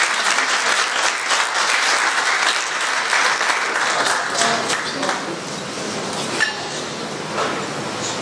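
Audience applauding and cheering at the end of a song, a dense clapping that thins out about halfway through. A single sharp knock about six seconds in.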